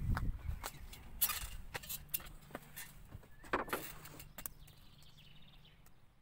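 Shoes scuffing and knocking as a man climbs onto the front bumper of a motorhome, with scattered sharp clicks from handling. There are two louder scraping rustles, about a second in and at three and a half seconds, over a faint low hum.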